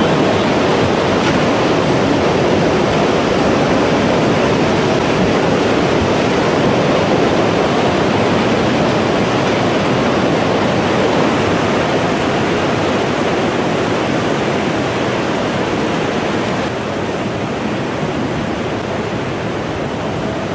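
Loud, steady rush of surging seawater flooding in, a continuous noise without a break, a little quieter in the last few seconds.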